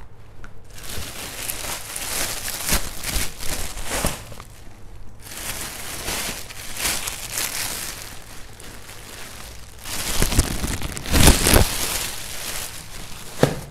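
Clear plastic bags rustling and crinkling as shoes are handled in and out of them, with a louder burst of crumpling about ten to twelve seconds in.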